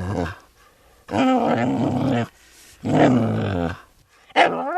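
An animal calling: three long, low calls of about a second each, with short pauses between them, then a shorter call that rises in pitch near the end.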